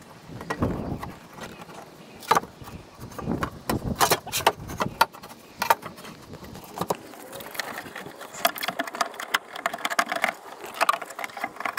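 Scattered knocks, clicks and scrapes of a 2003 Toyota Highlander's front passenger door window glass being slid down into the door's channels and set onto the window regulator, with denser small clicks and rattles in the second half.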